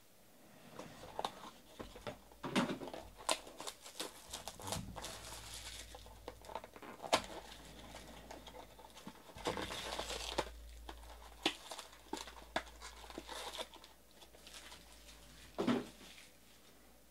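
Wrapped trading card packs crinkling and a cardboard card box being handled, with scattered taps and clicks as the packs are pulled out and set down on the table.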